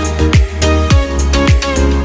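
Background music with a steady beat: a deep kick drum whose pitch drops on each stroke, about twice a second, over a bass line and melodic notes.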